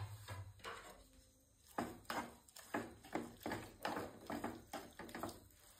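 Wooden spatula stirring wet grated cucumber in a non-stick kadai, making soft, irregular knocks and scrapes against the pan, about one or two a second.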